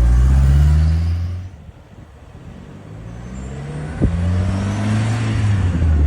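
Ford Escort RS Turbo's turbocharged 1.6-litre four-cylinder engine accelerating, rising in pitch. It drops off about a second and a half in, as at a gear change, then climbs steadily again. A single sharp knock comes about four seconds in.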